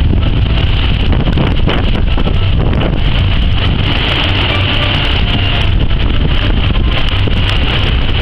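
Hurricane wind blowing steadily and hard across the microphone as a loud low rumble, over swimming-pool water being churned up by the storm.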